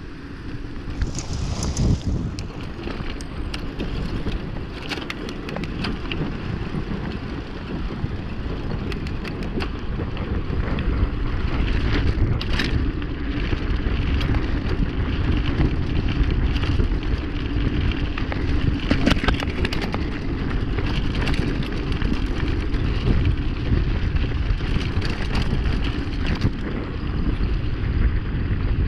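Mountain bike descending a rough road at speed: wind buffeting the action camera's microphone and tyre rumble, with scattered rattling clicks from the bike over the bumps. The wind noise grows louder about ten seconds in as the bike speeds up.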